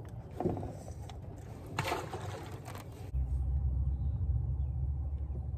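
A rustling burst of handling noise about two seconds in, then from about three seconds a sudden steady low rumble typical of wind buffeting the microphone.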